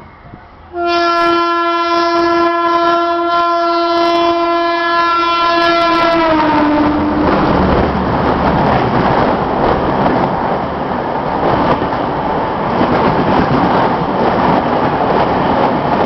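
WAG-7 electric locomotive sounding one long horn blast that begins about a second in, its pitch dropping slightly as the locomotive passes, about six seconds in. Then comes the steady noise of the train's coaches rolling past at speed.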